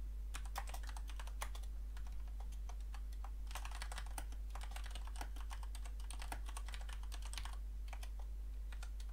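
Typing on a computer keyboard: bunches of quick key clicks with short pauses between them, over a steady low hum.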